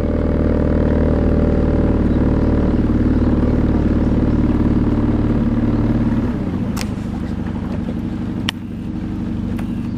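Small fishing boat's engine running steadily under way, then throttled back about six seconds in, dropping in pitch and level. A few light knocks near the end.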